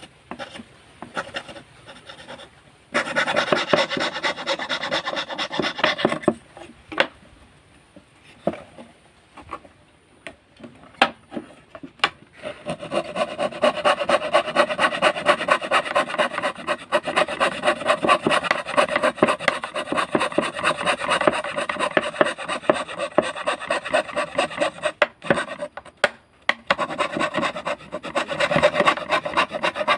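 Hand fretsaw cutting wood in quick, rapid strokes. A short run of sawing comes about three seconds in, then a pause broken by a few sharp clicks, then steady sawing from about twelve seconds on with a brief stop near twenty-five seconds.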